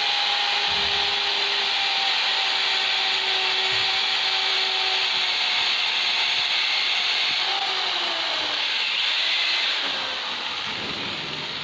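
Electric woodworking power tool working timber: a steady hiss of cutting or sanding over a motor hum. The hum drops in pitch and the sound eases off near the end.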